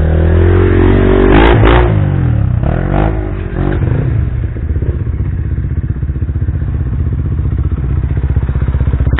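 Trail motorcycle engine revving up and down in the first few seconds as the bike works along a muddy, rocky trail, then running more steadily at lower revs.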